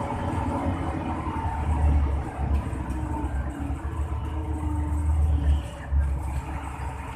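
Hino AK8 bus's six-cylinder diesel engine running under way, a deep, continuous sound that swells and eases a few times.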